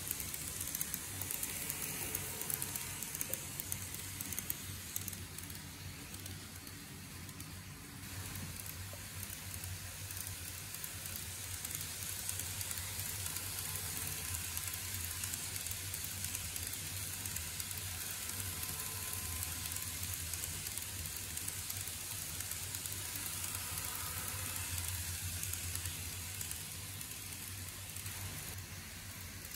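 N gauge model train, a TOMIX E231 series 0 set, running on its track: a steady fine crackling rattle of the small wheels on the rails with a low hum underneath.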